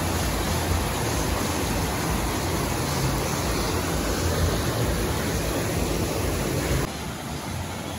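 Water rushing over a small concrete weir into a shallow stream, a steady churning rush. About seven seconds in it suddenly drops to a quieter, softer flow.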